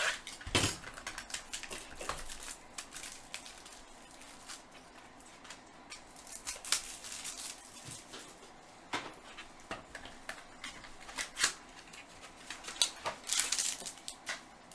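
Baseball trading cards being handled on a table: scattered small clicks, taps and brief rustles at irregular intervals.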